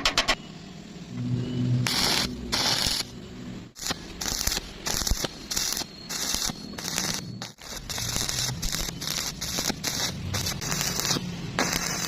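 Arc welding on steel rebar joints: the arc crackles and sizzles in short bursts of about half a second, stopping and restarting many times.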